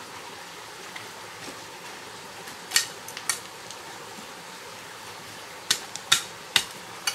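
A machete chopping at weeds and stony ground in sharp, clinking strikes: two about three seconds in, then four quicker ones near the end. A steady stream rushes underneath.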